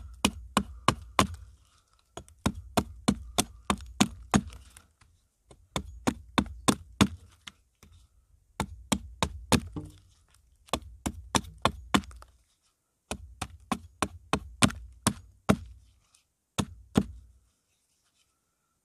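Small hatchet chopping at the end of an upright birch stick resting on a log, shaping a point: quick runs of sharp wooden strikes, about four or five a second, with short pauses between runs, stopping shortly before the end.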